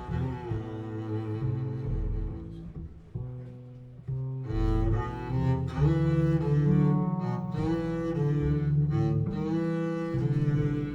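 Recorded music played over TAD loudspeakers: an instrumental passage of sustained low string notes with no vocals, swelling louder and fuller about four seconds in.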